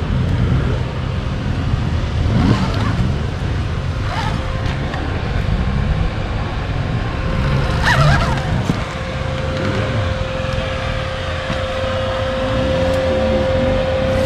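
Enduro dirt bike engines running and revving, with an engine's pitch rising and falling several times near the end.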